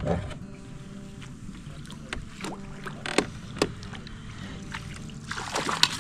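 Knocks and clatter on a fishing kayak while an angler fights a hooked sockeye salmon on a bent trolling rod, over a steady low hum. Several sharp knocks come in the middle, and a louder burst of splashing and rattling starts near the end as the fish is brought to the landing net.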